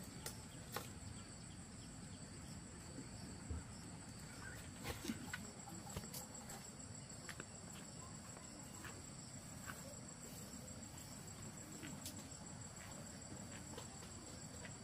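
Insects chirring steadily in a high, thin band, with occasional light clicks and taps.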